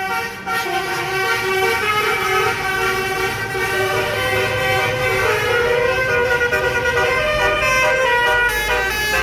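Bus 'telolet' Basuri multi-trumpet air horn playing a tune, several tones sounding together and stepping from note to note. A low engine rumble comes up near the end.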